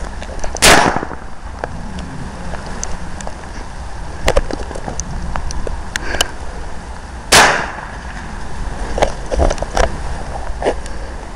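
Two loud firecracker bangs about seven seconds apart, each with a short tail, with fainter pops and clicks between them, over a steady low rumble of wind on the microphone.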